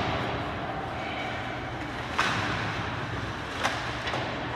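Ice hockey play in an indoor rink: steady arena noise with two sharp knocks from puck and sticks echoing around the rink, the louder about two seconds in and another about a second and a half later.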